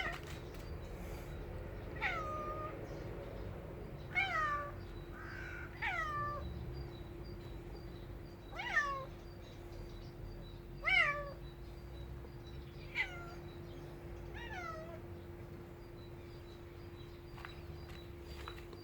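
Kitten meowing over and over: about eight short meows, each falling in pitch, roughly two seconds apart, then quiet for the last few seconds.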